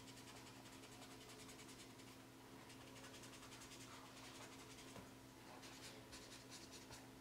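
Faint scratching of a felt marker nib drawn in quick, repeated strokes across paper, over a steady low room hum.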